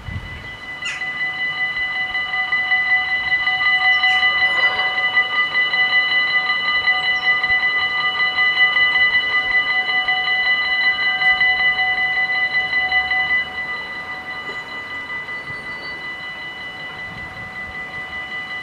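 Dutch level-crossing warning bells ringing continuously as the crossing activates and the barriers come down: a loud, steady ringing made of several fixed tones. About two-thirds of the way through the ringing drops to a lower level, as the bells do once the barriers are down.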